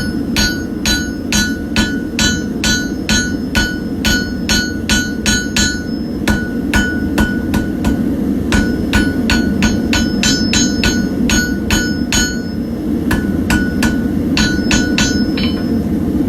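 A forging hammer striking hot steel on an anvil to draw out a hook-knife blank, about three blows a second in runs with short pauses, each blow ringing. A gas forge runs steadily underneath.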